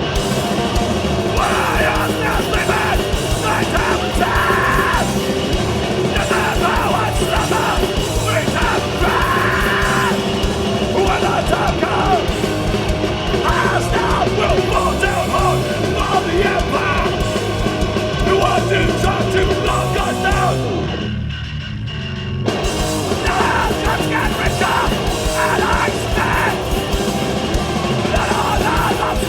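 Live hardcore punk band playing a fast song at full volume: distorted guitars, drums and yelled vocals. About 21 seconds in, the band stops short for about a second and a half, leaving only the low end, then crashes back in.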